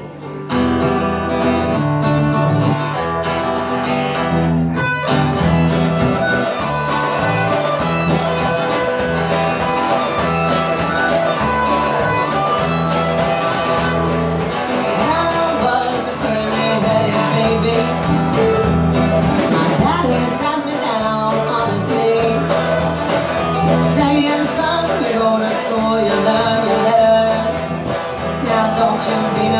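Live band playing a song, with acoustic and electric guitars, electric bass and drums, and a woman singing lead; the band comes in just after the start.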